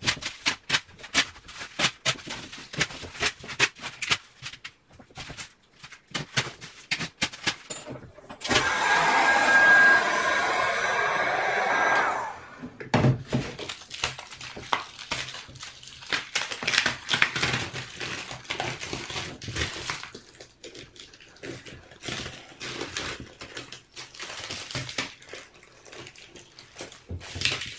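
Mylar speaker-diaphragm foil crackling and crinkling in irregular bursts as it is peeled off a planar magnetic panel in strips. About eight seconds in, a heat gun blows steadily for about four seconds, heating the glue to weaken it.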